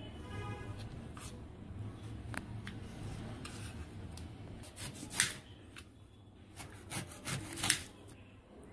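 Kitchen knife cutting fruit on a bamboo cutting board: the blade scrapes and rubs through the flesh and across the wood. Sharp knocks of the blade on the board come now and then, the loudest a little past the middle and a quick run of them near the end.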